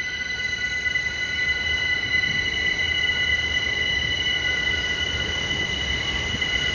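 Subway train's steel wheels squealing on curved track: several steady high-pitched tones held together over a low rumble.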